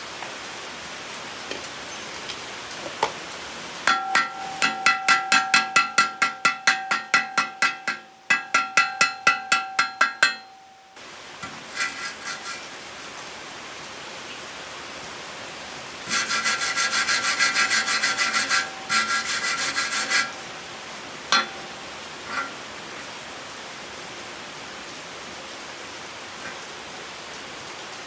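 Steel wire brush scrubbing slag off a fresh stick weld on galvanized square steel tube, the hollow tube ringing under the strokes. Two spells of rapid back-and-forth strokes, about three to four a second, one from about four seconds in and a second one around sixteen seconds, with a steady hiss between.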